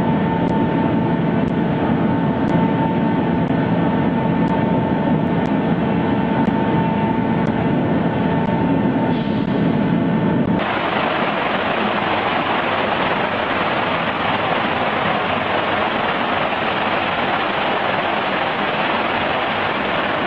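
Aerated concrete block production machinery running with a steady hum of several tones and a faint tick about once a second. About ten seconds in, the sound switches abruptly to an even, hissing rush of machine noise.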